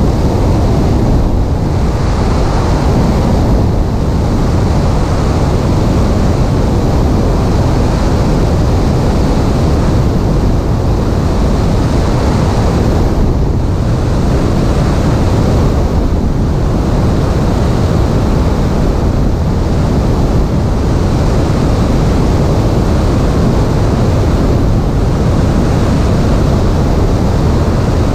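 Steady, loud rush of slipstream wind over a microphone mounted on a Piper Cherokee's stabilator, with the light plane's engine and propeller noise mixed in underneath.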